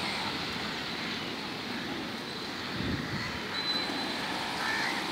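Steady outdoor rushing noise with no clear beat or pitch.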